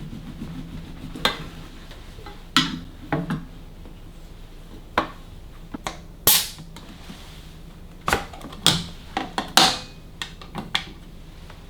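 Hard objects being handled and set down: about a dozen separate sharp clicks, knocks and clinks at irregular intervals, a few with a short ring.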